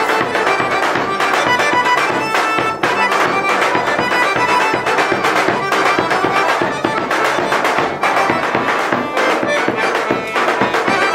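Lively traditional folk dance music: an accordion melody over a steady beat on a large drum.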